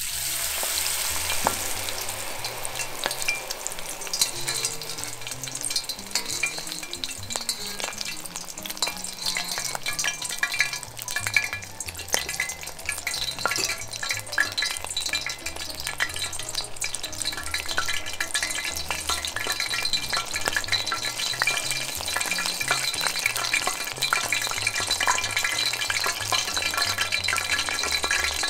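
Batter-coated shrimp deep-frying in hot tempura oil: a steady, dense crackling sizzle made of many fine pops.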